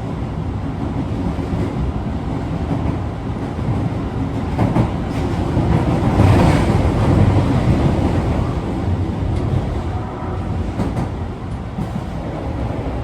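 Osaka Metro 22 series subway train running, a dense low rumble of wheels and running gear that grows louder about six seconds in and eases again after about eight seconds.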